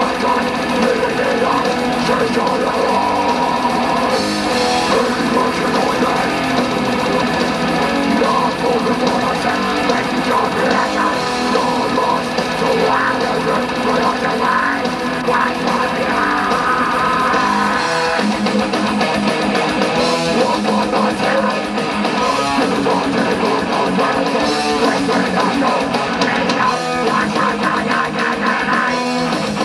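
Death metal band playing live: distorted electric guitars over a drum kit, loud and unbroken. The deepest low end thins out a little past halfway.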